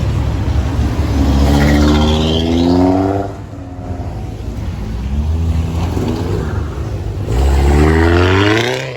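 A car engine being revved hard twice, its pitch climbing each time, with the engine running lower in between.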